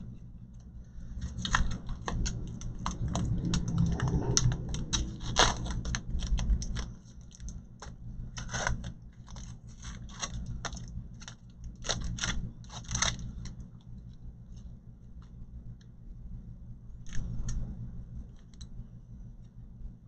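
Clicks, taps and light rattling from a graphics card being handled and turned over in the hands, its plastic shroud and metal bracket knocking. The clicks come thick for most of the first dozen seconds, with another short flurry near the end, over a steady low hum.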